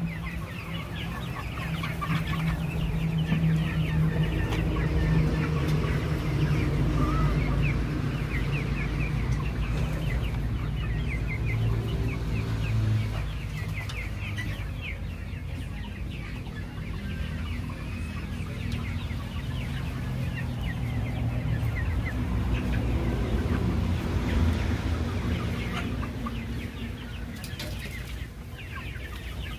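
Flock of young Kaveri chickens peeping and clucking, many short high calls overlapping, over a steady low rumble.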